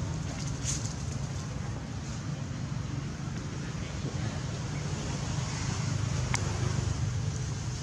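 Steady low rumble and hiss of outdoor background noise, with two faint sharp ticks, one near the start and one about six seconds in.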